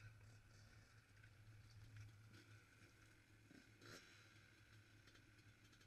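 Near silence: a faint steady low hum with a few faint clicks.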